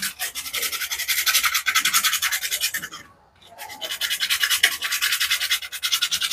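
Bicycle disc brake pad rubbed back and forth on sandpaper in quick, even strokes: a rapid rasping scrape that pauses briefly about three seconds in, then resumes. The pad's face had worn glazed and smooth, and is being roughened so the brake grips again.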